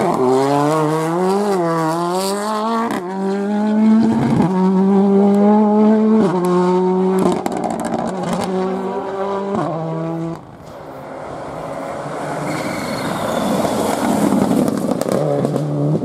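Rally car engine at full throttle, its pitch climbing and then dropping sharply at each gear change, several times over. About ten seconds in it cuts off abruptly, and a more distant car's engine and road noise gradually grow louder.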